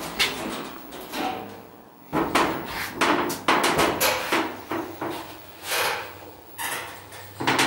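Elevator cab travelling between floors: a low steady hum with irregular sharp knocks and clunks, about one or two a second.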